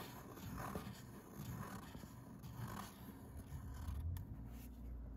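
Nib of a Parker 50 Falcon fountain pen scratching across paper as it draws a run of loops, a soft scratch rising and falling with each loop, the scratching fading near the end.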